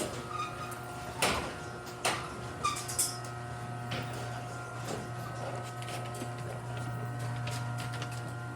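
Chamberlain belt-drive garage door opener running as it opens the door, a steady motor hum with a few clicks and knocks in the first three seconds.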